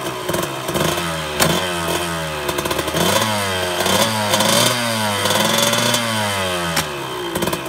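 1989 Kawasaki KX125's single-cylinder two-stroke engine, breathing through a full FMF exhaust, being revved over and over, its pitch rising and falling with each blip of the throttle. It is being revved so that the KIPS power valves come into play.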